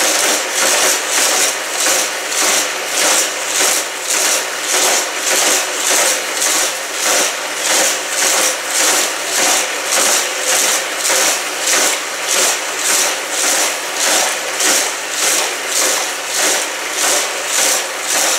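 Motorized Hot Wheels Criss Cross Crash track sets running: the battery-powered boosters whir steadily as die-cast cars are sent around the plastic loops, the sound swelling and fading in a steady, regular pulse.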